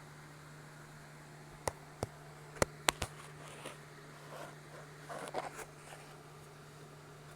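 Five sharp clicks and knocks in quick succession, then a second or so of softer clattering, over a steady low hum.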